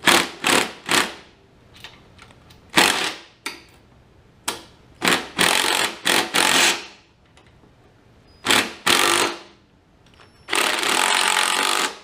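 Impact wrench hammering in a series of short bursts, about nine in all with the longest near the end, running a nut down on the top of a garden tractor's steering shaft.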